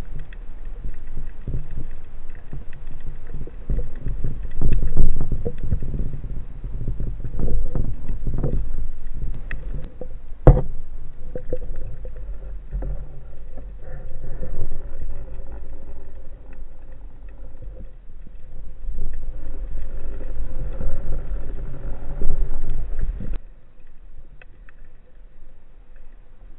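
Muffled underwater rumble and sloshing picked up through an action camera's waterproof housing as a diver moves through the water, rising and falling in level, with scattered clicks and one sharp click about ten seconds in. The rumble drops away suddenly near the end.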